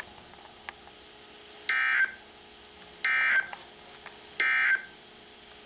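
Three short digital data bursts of a SAME/EAS end-of-message code, about a second apart, from a weather radio receiver. They mark the close of the National Weather Service's required weekly test broadcast.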